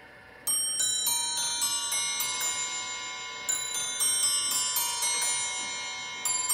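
Antique German bracket clock chiming on its eight bells: quick runs of about eight ringing bell notes, about three notes a second, starting half a second in; a second run begins about halfway through and a third near the end.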